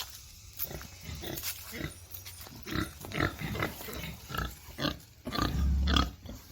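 Farm livestock calling in many quick, short cries that grow busier partway through, with a loud low rumble about five seconds in.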